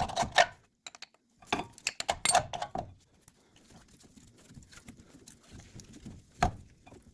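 Wrench clinking and scraping against a very tight 17 mm brake-line fitting on a disc brake caliper, in short irregular clusters of metal clicks. There is a single sharp knock near the end.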